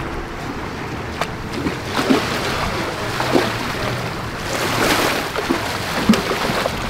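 Waterside noise of wind and moving water, swelling a little midway, with a few short knocks and clicks.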